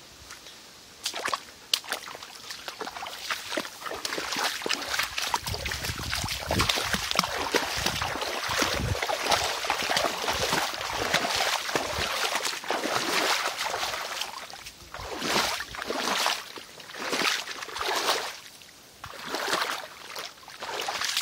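Splashing and sloshing through shallow creek water, starting about a second in, dense and continuous at first, then breaking into separate splashing steps about one a second in the second half.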